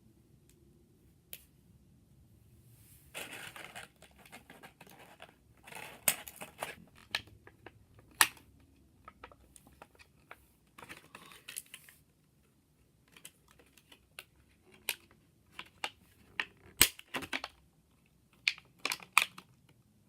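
Hands handling and working at a Beyblade toy's packaging, not yet opened: scattered clicks and taps with short crinkling rustles of plastic and card, and a few sharp snaps.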